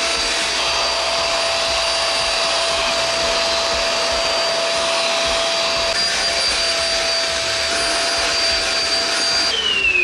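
Lifelong Amaze Pro bagged canister vacuum cleaner running at full suction: a steady rush of air with a high motor whine. Near the end it is switched off, and the motor winds down with a smoothly falling whine.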